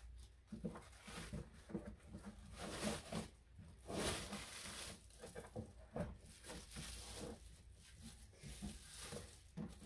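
Thin clear plastic bag crinkling and rustling in irregular bursts as it is handled and pulled around a boxed egg incubator.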